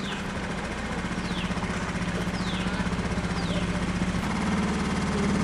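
A small canal boat's engine running steadily with an even low drone. Short high whistles, each falling in pitch, repeat about once a second through the first few seconds.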